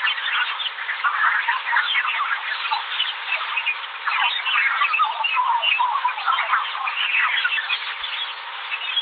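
Earth's auroral kilometric radiation, a natural radio emission from above the auroral zones, recorded in space and played as sound: a dense, continuous chatter of short falling and rising chirps over a hiss, with a faint steady tone underneath.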